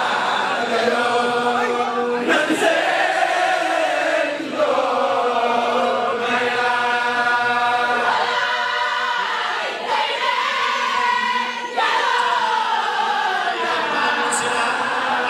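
Layène Sufi zikr chanted by a crowd of worshippers singing together in long, drawn-out phrases with brief breaks between them.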